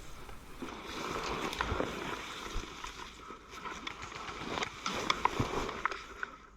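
Rustling movement noise on a worn action camera, with several sharp clicks or taps scattered through it, most of them close together between about four and a half and six seconds in.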